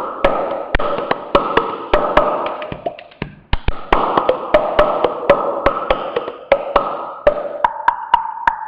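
Human mouth sounds: sharp tongue clicks at a quick, uneven rhythm over a held, steady voiced tone. The tone breaks off about three seconds in, resumes, and shifts pitch near the end.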